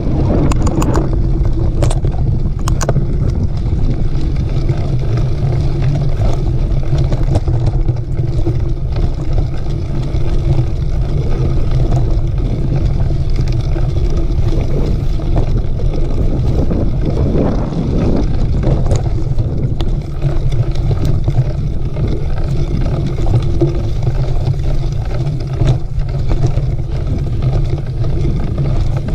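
Mountain bike riding a dirt trail: steady low wind rumble on the microphone and rolling noise, with scattered clicks and rattles.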